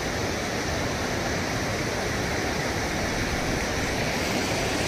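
Steady rushing of running river water, even and unbroken.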